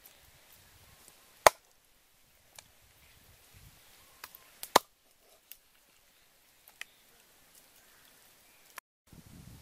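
Scattered sharp knocks and taps from handling the raw duck during food preparation. The loudest comes about a second and a half in, and a quick cluster follows near the middle.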